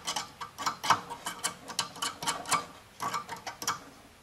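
Quick, irregular small metal clicks and taps of hand tools working among the wires and parts inside a tube radio chassis, while replacing its filter capacitors.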